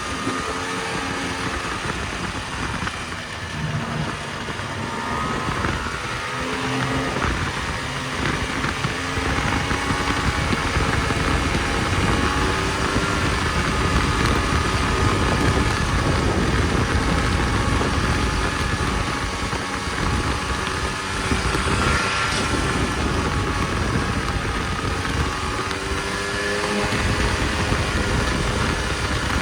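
Snowmobile engine running under way, its pitch rising and falling as the throttle changes, over a steady rushing noise. It gets louder about ten seconds in and stays up.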